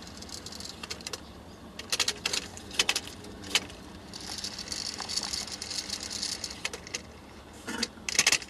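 Room noise: a steady low hum with scattered sharp clicks and rattles, and a few seconds of hiss midway.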